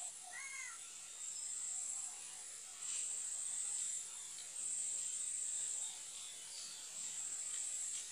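Insects, crickets or cicadas, buzzing high-pitched in four repeated spells of about a second each.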